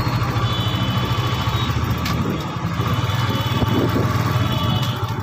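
Motorcycle engine running steadily at cruising speed, with a constant low hum under a steady rush of wind and road noise.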